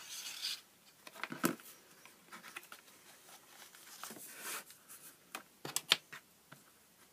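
Cardstock being handled and folded on a cutting mat: light rustling and scraping of card, with scattered small taps and clicks, the sharpest about six seconds in.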